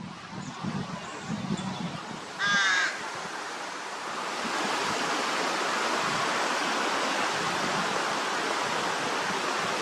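A crow gives one harsh caw about two and a half seconds in. From about four seconds on there is a steady rushing hiss.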